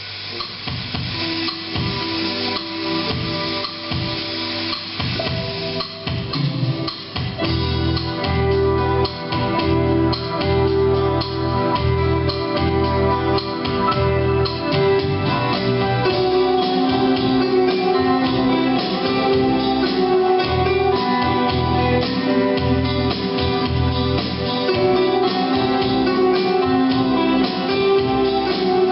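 Instrumental song introduction with a steady drum beat, fading in and growing fuller after several seconds.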